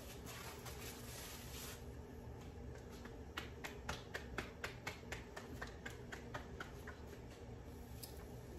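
Hands patting a freshly pressed raw corn-masa tortilla from palm to palm: about fifteen light slaps at roughly four a second, starting about three seconds in. Before that, a soft rustle of the plastic sheet the tortilla is peeled from.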